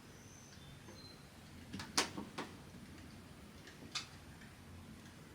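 Small hard objects being handled and set down: a quick cluster of clicks and knocks about two seconds in, and one more knock near four seconds.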